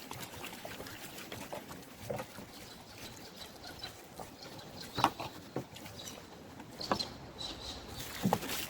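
Wood campfire crackling over a faint steady hiss, with scattered pops and one sharp snap about five seconds in.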